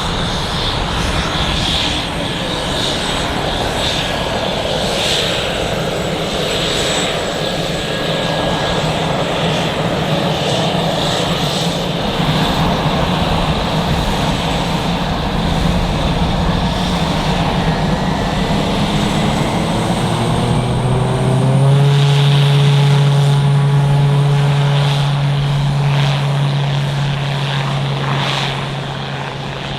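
Aircraft engine running steadily. About 20 seconds in, its pitch rises and then holds as a strong, steady hum.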